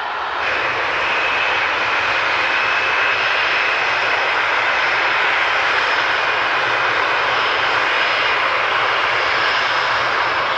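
Boeing 747's jet engines running steadily on the ground, a broad rush with a steady high whine that comes in about half a second in and holds.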